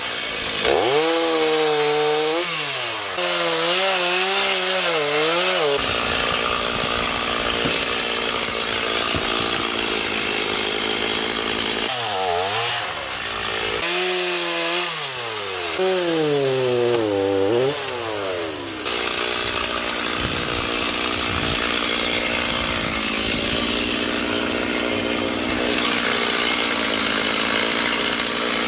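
Gasoline chainsaw cutting through the limbs of a fallen tree. Twice the engine revs up and down between cuts, and between those spells it runs steadily at full throttle while in the wood.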